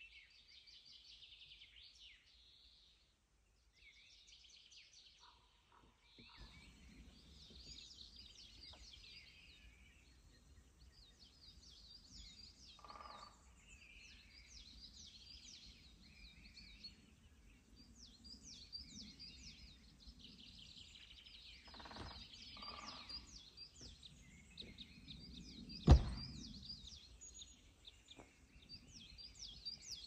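Small forest birds chirping and singing in many short high calls, over a faint background noise. A single sharp knock stands out near the end.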